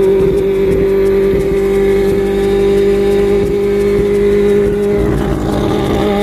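Turbocharged four-rotor peripheral-port rotary engine of a 1993 Mazda RX-7 running at steady, held revs, a loud, even drone. Its tone changes about five seconds in.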